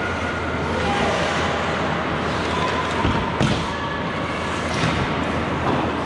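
Live ice hockey play: skates scraping the ice over a steady rink hum, with a sharp knock about three and a half seconds in.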